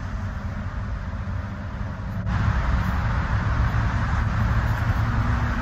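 Steady low rumble and hiss of outdoor background noise, stepping up in level about two seconds in.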